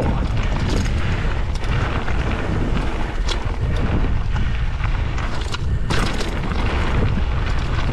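Wind buffeting the bike-mounted microphone over the rumble of mountain bike tyres rolling fast on loose gravel, with a few sharp clicks and rattles from stones and the bike, the loudest about six seconds in.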